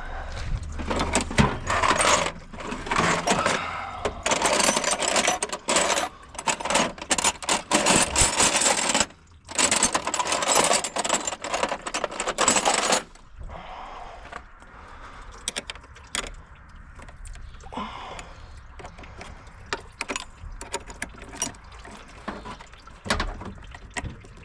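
Repeated bursts of a power tool run in spurts of about a second each during car engine-bay disassembly, then lighter clicks and clinks of tools and metal parts for the second half.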